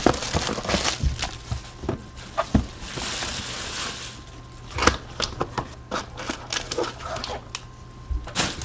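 A sealed trading-card box being opened by hand: crinkling wrapper, cardboard rustling and small clicks and taps, with a longer stretch of tearing noise about three seconds in. A faint steady electrical hum sits underneath.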